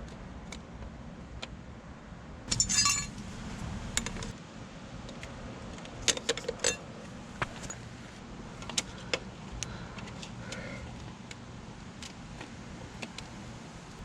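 Metal hand tools clinking against each other and against the motorcycle, with a short jangling rattle about two and a half seconds in and scattered sharp clicks after it.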